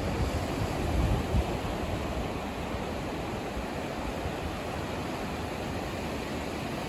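Ocean surf breaking and washing up the beach as a steady rush, with wind buffeting the microphone in low rumbling gusts, strongest about a second in.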